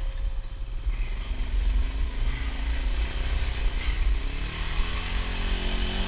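Single-cylinder four-stroke ATV engine running under the rider. Its pitch rises over a few seconds from a little after the start, then holds steady near the end.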